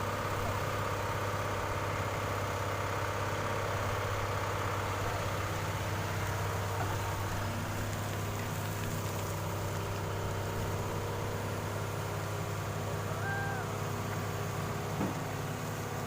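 Diesel engine of heavy earthmoving machinery running steadily with a constant low hum, with a brief knock near the end.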